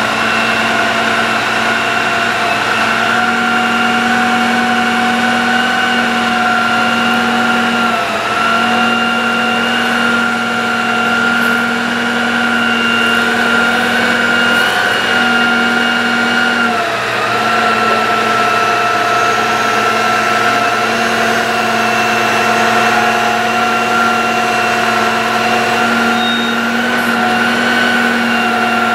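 Bucket truck's engine running with the PTO engaged, driving the hydraulic pump as the aerial boom is raised. A steady whine whose pitch dips briefly twice, about eight and seventeen seconds in.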